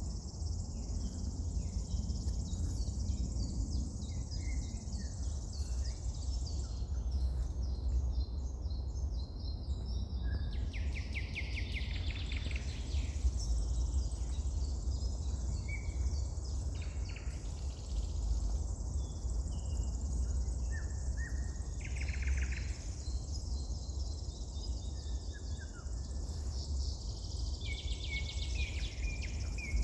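Several wild songbirds singing and calling, with short chirps and a few rapid trills, over a steady high hiss and a low constant rumble.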